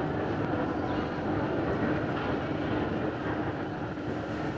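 Jet airliner's engines running steadily as it rolls along the runway, heard through the terminal window glass, with a faint steady hum under the engine noise.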